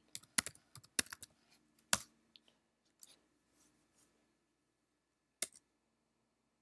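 Typing on a computer keyboard: a quick run of keystrokes over the first two seconds, then a few isolated clicks.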